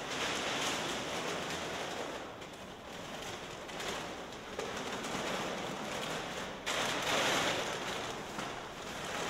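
Large sheets of brown paper rustling and crackling as they are crumpled and bunched around a person's head and body. The noise is continuous, with louder surges near the start and again about two-thirds of the way through.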